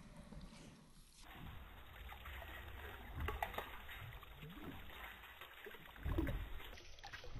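Water splashing and trickling, with a few small knocks.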